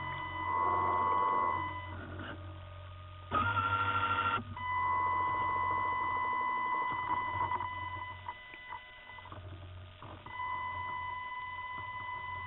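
High, steady electric whine from inside a model submarine, with a low hum under it. It is typical of the electric drive motor and its speed controller. The whine cuts out about two seconds in and again near eight seconds, then comes back each time, and a short, louder burst of higher-pitched whine comes about three and a half seconds in.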